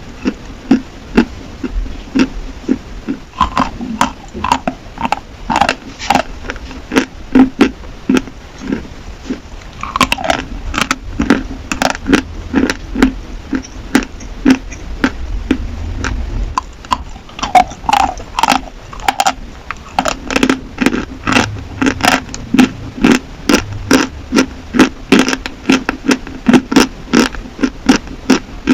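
Pieces of dry chalk being bitten and chewed close to the microphone: a quick run of sharp, dry crunches, about two a second.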